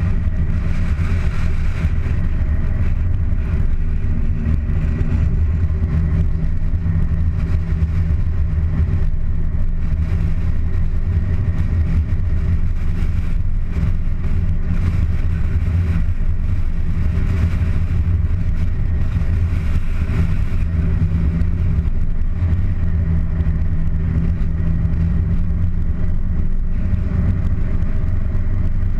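Car engine running at a steady pitch while the car drives along, with a steady haze of road noise.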